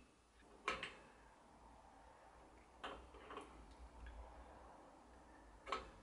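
Faint, scattered clicks of small metal bicycle parts being handled as a seat-post clamp quick release is adjusted by hand, four in all, over a low steady hum.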